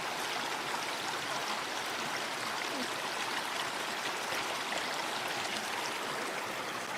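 Shallow creek water running, a steady babbling rush.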